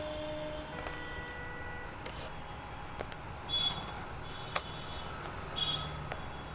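Steady low hum of a running hot-air rework station, with a few light clicks and two or three short high beeps.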